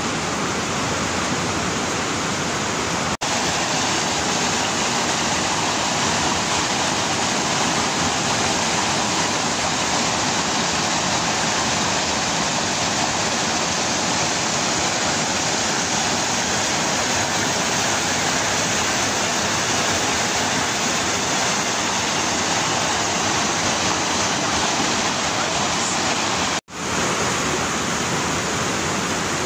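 Steady rushing noise of a waterfall and fast-flowing river water. It cuts out briefly twice, once about three seconds in and once near the end.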